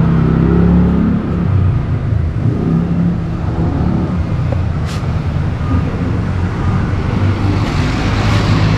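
Motor vehicle traffic with a steady low engine hum from nearby running vehicles, and the hiss of a vehicle passing close near the end.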